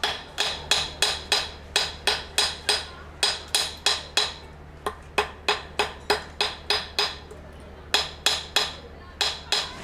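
Hammer blows on metal while forging a silver ring: a rhythmic run of sharp, ringing strikes at about three a second, pausing briefly twice before the blows resume.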